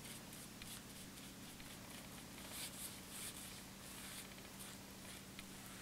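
Faint swishing of a foam brush drawn across a painted cardboard book cover as a coat of Mod Podge is brushed on, in short, even strokes about two a second.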